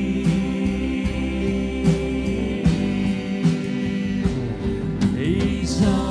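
Live church worship band playing a slow gospel song: a drum kit keeping a steady beat under sustained keyboard and acoustic guitar, with singing.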